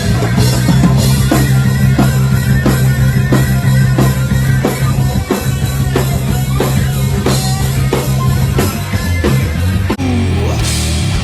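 Stoner rock band playing live: heavy electric guitar and bass riff over a steady drum-kit beat. The sound changes about a second before the end.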